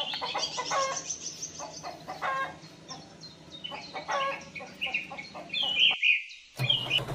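Farmyard birds calling: hens clucking amid chirping, a busy run of short, irregular calls.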